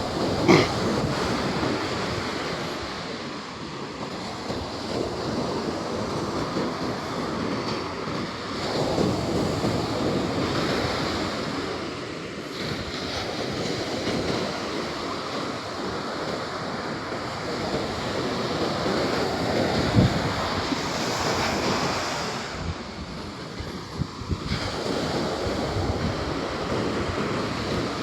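Ocean surf breaking and washing up a beach in slow swells, with wind buffeting the microphone. A couple of brief knocks stand out, one just after the start and one about two-thirds of the way through.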